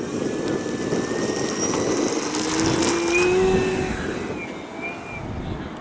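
Electric RC airplane's motor whining in flight, its pitch gliding slowly upward and loudest about three seconds in, over wind rumbling on the microphone.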